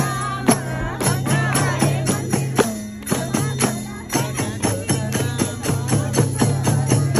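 Music: singing over a steady beat of jingling hand percussion, with a low note held underneath.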